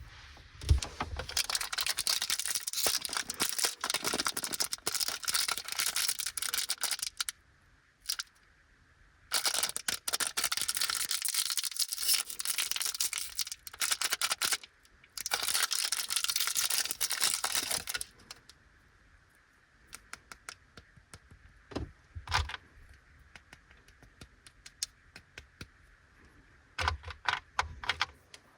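Crinkly plastic candy wrappers of small bagged Anpanman chocolates being handled and torn open, in three long stretches of dense crackling. Scattered light clicks and taps follow in the last third.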